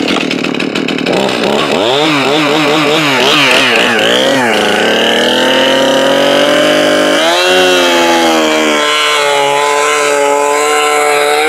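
Stihl MS271 Farmboss, a 50cc two-stroke chainsaw, revved in several quick rises and falls, then held at full throttle ripping lengthwise into a log (noodling), its pitch sagging under load about seven seconds in. The owner finds this saw underpowered and says it bogs down in rip cuts.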